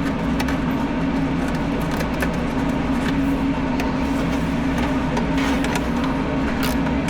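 Rational SCC WE combi oven machinery running: a steady low hum with irregular clicks and rattles over it.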